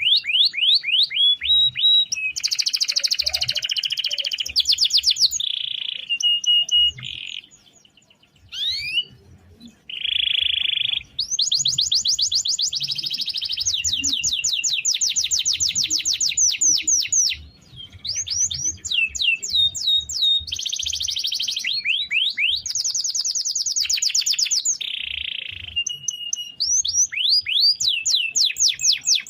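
Canary singing long rolling trills: fast runs of rapidly repeated high sweeping notes, broken by a short pause about eight seconds in.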